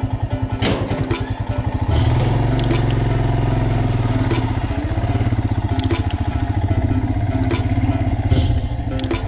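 Royal Enfield single-cylinder motorcycle engine running at low speed with a steady thumping pulse. It grows louder and steadier about two seconds in as the bike moves off.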